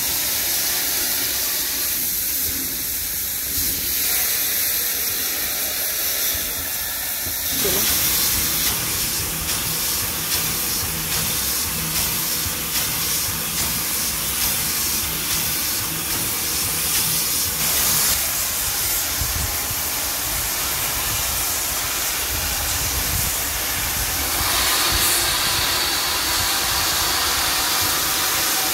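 SNCF 241 P steam locomotive rolling slowly with steam blowing from its cylinder drain cocks: a continuous loud hiss of escaping steam, growing brighter near the end as the engine draws close.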